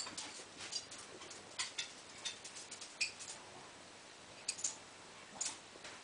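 A small dog's claws clicking and scrabbling on a tile floor, in scattered irregular taps.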